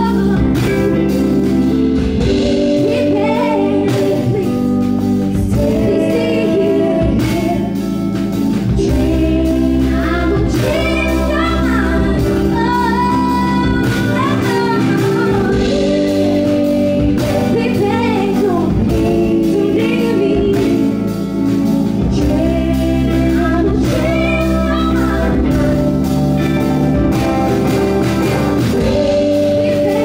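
Live band music: a woman sings the lead in long, wavering notes over electric guitar and band backing.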